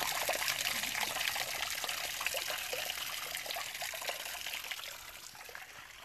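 Small waterfall splashing and trickling over a rock ledge, a steady rush of water that fades out gradually toward the end.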